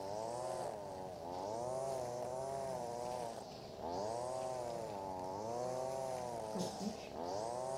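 Echo SRM-225 string trimmer's small two-stroke engine running at high revs while cutting grass, its pitch sagging and recovering about a second in, around three and a half seconds in, and near the end.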